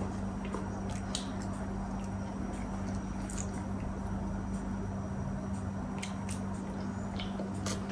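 Small wet clicks and smacks of a toddler chewing a cookie, scattered over a steady low hum.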